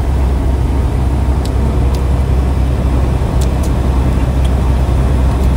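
Steady low drone of engine and road noise inside a semi-truck's cab at highway speed, with a few faint light ticks.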